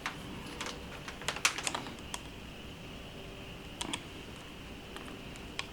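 Light plastic clicks and taps from handling a small electronic device and its test gear on a workbench: a quick cluster in the first two seconds, then single clicks near four seconds and near the end. A faint steady high-pitched tone comes in about two seconds in.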